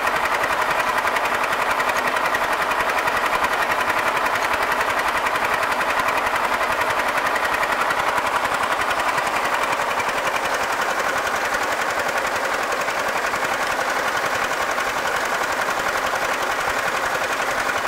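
An engine running steadily with a fast, even rattle.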